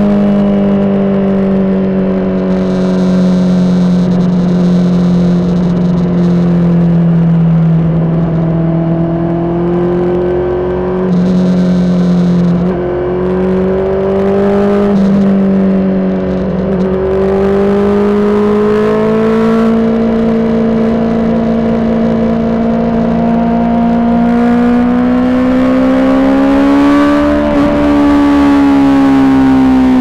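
Honda CBR600RR inline-four sportbike engine through a Toce aftermarket exhaust, running under way at a steady cruise. The engine note sags slowly, wavers up and down through the middle, climbs under throttle toward the end, then eases off.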